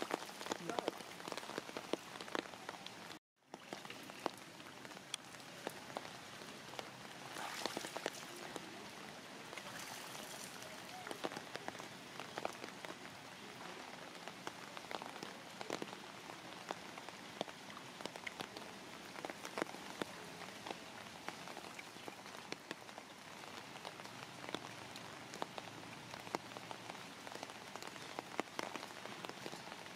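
Steady rain falling, with sharp ticks of single drops striking hard surfaces. The sound cuts out for a moment about three seconds in.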